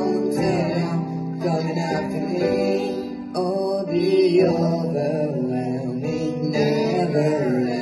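Boys singing a worship song into microphones, accompanied by sustained chords on an electronic keyboard.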